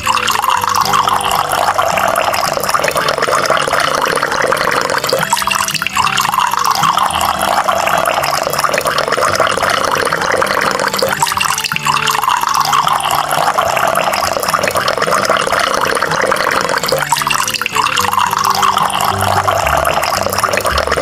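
Running water, a steady rush that swells and starts over about every six seconds, over a low steady hum.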